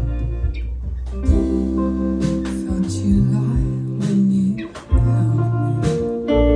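Live indie rock band playing: guitars and bass holding sustained notes over drums, with repeated drum and cymbal hits.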